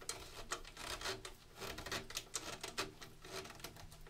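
Screwdriver turning the screw of a band clamp around a 4-inch PVC pipe: a run of quick, irregular clicks and scrapes.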